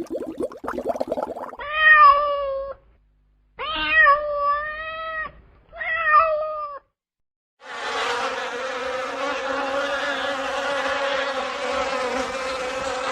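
Domestic cat meowing three times, each meow about a second long with a gap between. It is followed by a steady, noisy drone of about five and a half seconds. A rapid fluttering sound runs through the first second or so.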